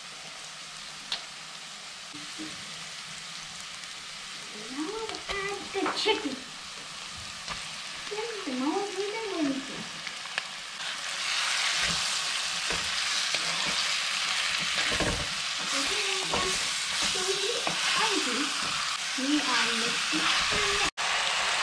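Onions frying in hot coconut oil in a clay pot, sizzling while a wooden spatula stirs them. About halfway through, as marinated chicken pieces go in, the sizzle grows louder and denser.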